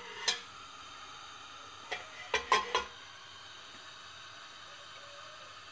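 Metal spoon clinking against a stainless steel pot: one sharp ringing clink, then a quick cluster of three about two seconds later. Under it, a faint steady sizzle of whole spices frying in oil.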